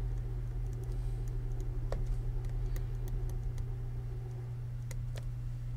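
Pen stylus tapping and scratching on a drawing tablet during handwriting, in scattered light clicks, over a steady low electrical hum.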